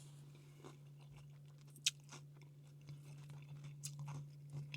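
Faint chewing and crunching of a mouthful of food, with small mouth clicks; one sharper click about two seconds in, and the clicks come more often near the end. A steady low hum runs underneath.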